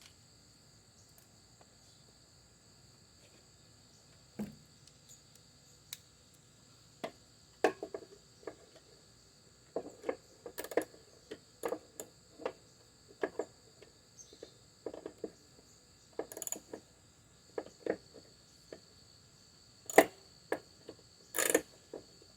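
Scattered knocks and clinks of hand tools and parts being handled at a small-engine repair, sparse at first and busier after about seven seconds, with the sharpest knocks near the end. A steady high-pitched whine runs underneath.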